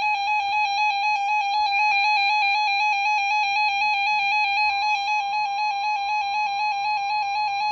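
Weather radio receiver's alert alarm: a loud electronic tone warbling rapidly between two pitches, about seven or eight changes a second. It signals that a severe thunderstorm warning has been received.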